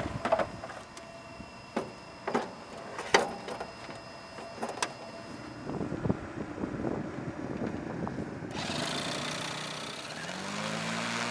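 Sharp metallic clicks and clanks as the drone's airframe is fitted and latched onto its launcher rail. A steady hiss comes in about two-thirds through, and near the end a small engine runs up in pitch and settles to a steady drone.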